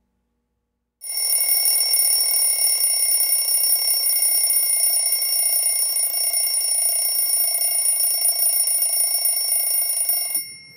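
A bell ringing without a break, with several high, steady ringing tones. It starts about a second in and cuts off suddenly near the end.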